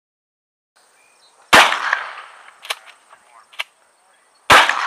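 Two pump-action shotgun shots about three seconds apart, each with a long echoing tail, with two short sharp clicks between them.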